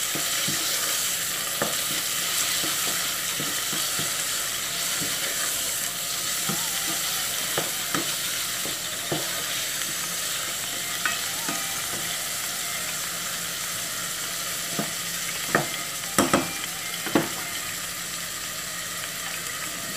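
Diced chicken breast sizzling steadily as it fries in a saucepan, with a spatula stirring it and clicking against the pan now and then. A few louder knocks come close together near the end.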